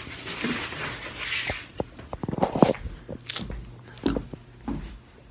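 Rustling for about a second and a half, then a series of light knocks and clicks.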